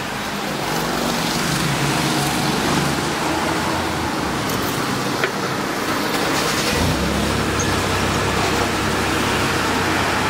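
Steady rushing noise of road traffic. About two-thirds of the way in, a steady low hum starts and holds: the fuel dispenser's pump running as diesel is pumped into the motorcycle's tank.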